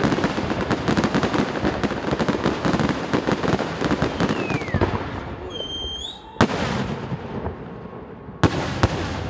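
Fireworks going off: a dense crackling for the first five seconds or so, with a short falling whistle, then a sharp bang about six seconds in and two more bangs in quick succession near the end.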